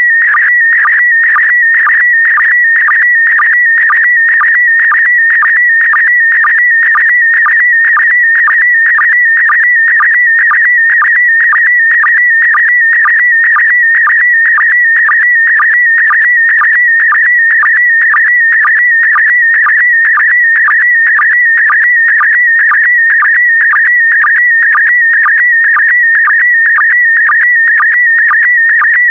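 Slow-scan TV image transmission in PD120 mode: a continuous warbling tone near 2 kHz that carries the picture data line by line, interrupted about twice a second by a brief lower sync pulse.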